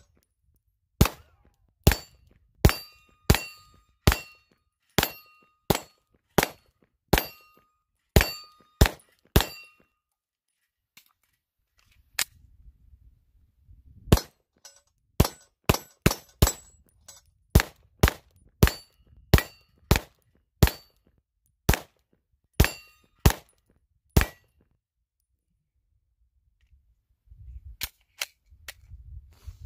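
Glock 19 Gen 5 9mm pistol fired in two strings of about a dozen shots each, roughly one shot every two-thirds of a second, with a pause of a few seconds between them. Steel targets ring after many of the hits.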